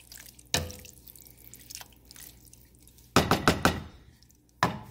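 A spoon stirring thick simmering chili in a stainless steel pan, with wet dripping sounds. The spoon knocks against the pan about half a second in with a short metallic ring, then several times in quick succession around three seconds in, and once more near the end.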